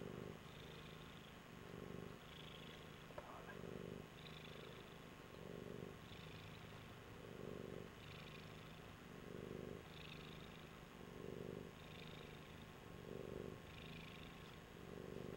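Tabby cat purring steadily and faintly, the purr swelling and easing with each breath about every two seconds.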